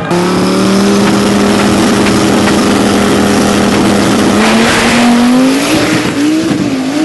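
Dodge Viper drag car's V10 held at a steady high rev on the start line, then launching, its pitch climbing from about four and a half seconds in and wavering near the end.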